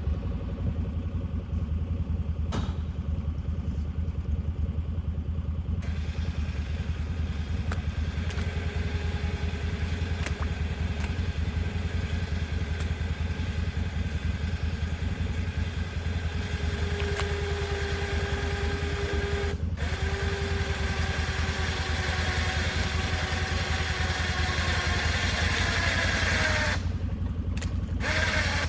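A vehicle engine starts and then runs steadily with a deep hum. From about a third of the way in a whining tone rises over it and climbs in pitch, then falls away near the end.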